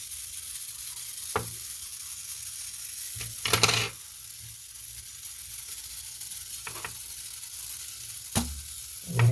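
A few light irregular clicks and handling knocks as parts of a mechanical alarm-clock movement are taken off and repositioned, the loudest about three and a half seconds in, over a steady background hiss.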